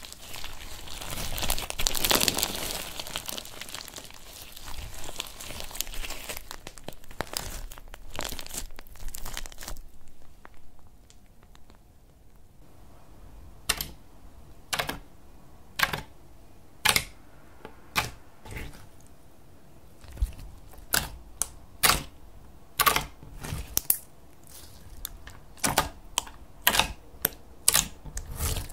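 Bead-filled slime being stretched and squished in the hands, crackling densely for several seconds. Then fingertips press into clear glitter slime, giving a string of sharp clicking pops, about one a second at first and coming faster near the end.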